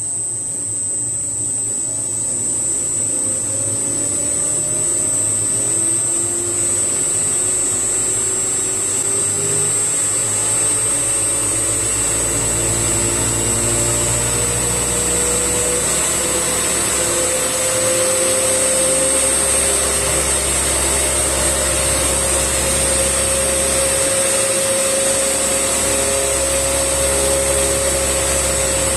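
3D-printed axial flux brushless DC motor spinning a propeller: a whirring hum and propeller air noise that rise in pitch over roughly the first half as the motor speeds up, then hold steady, with a constant high-pitched whine throughout.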